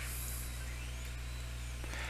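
Steady low electrical hum with a faint even hiss from an idle, powered-up 3D printer's power supply and cooling fan.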